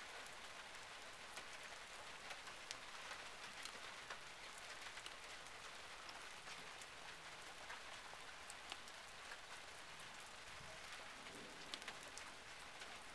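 Light rain falling on dry desert grass: a faint, steady patter of big, sparse drops, with single drops ticking here and there.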